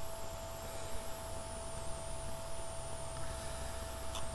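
Steady electrical hum with a thin, wavering high whine over a low background hiss, and a couple of faint clicks near the end.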